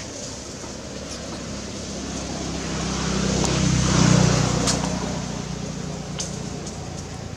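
A motor engine passes by, growing louder to a peak about four seconds in and then fading, over a steady hiss. A few sharp clicks sound in the middle.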